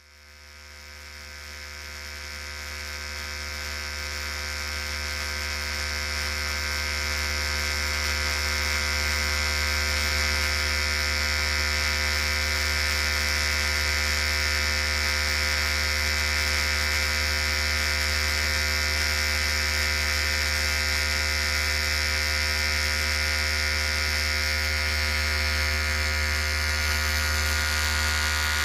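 Electric hair clipper running with a steady buzz. It rises out of silence and grows louder over the first several seconds, then holds level.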